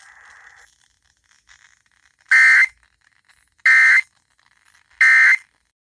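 Emergency Alert System end-of-message data bursts: three identical harsh, buzzy digital bursts, each under half a second and about 1.4 s apart. They signal the end of the alert message.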